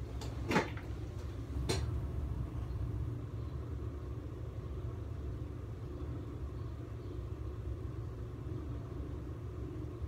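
A steady low mechanical rumble with a faint hum above it, and a few sharp clicks and knocks in the first two seconds as the phone is handled.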